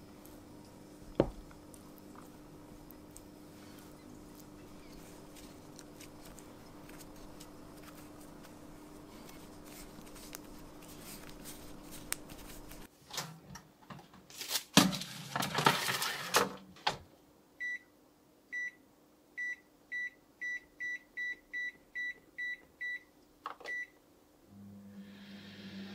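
Handling noise and a loud burst of rustling and knocks, then about a dozen short electronic beeps from a Toshiba steam oven's control panel as it is set for a 35-minute steam proof at 40 °C, coming faster in the middle. Near the end the oven starts running with a low steady hum.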